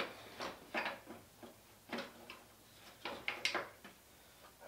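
Irregular clicks and light knocks of hand tools and car parts being handled, several in a row with short gaps between.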